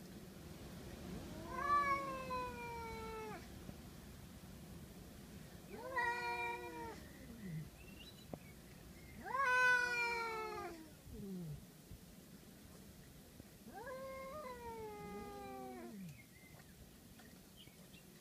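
Two ginger cats yowling at each other in a territorial standoff: four long, drawn-out wails of about two seconds each, a few seconds apart, each sliding down in pitch at the end. The loudest comes about ten seconds in.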